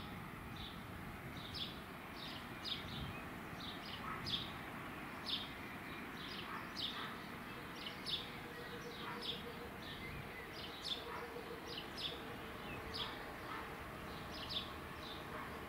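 A small bird chirping over and over, short high notes about once a second, over steady outdoor background noise.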